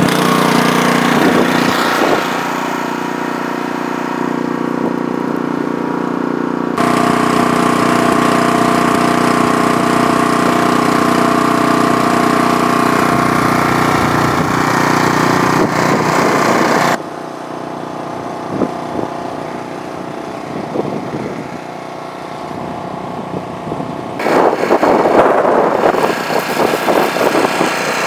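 Honda snowblower's four-stroke engine running steadily under noise from the blower and the storm. Its level and tone shift abruptly a few times, and the last few seconds are rougher and noisier.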